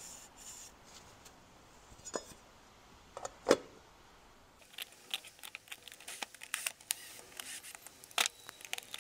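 Paper towel rubbing on an aluminium engine-computer cover, then handling noises of the metal case on a workbench: a click, one sharp knock about three and a half seconds in (the loudest sound), and from about five seconds a run of light irregular clicks and taps.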